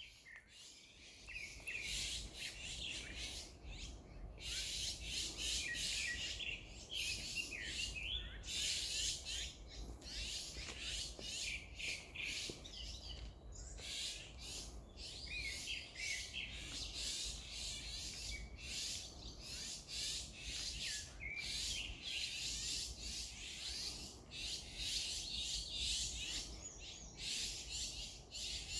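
A dense chorus of many birds chirping and calling over one another without a break, with a steady low rumble underneath.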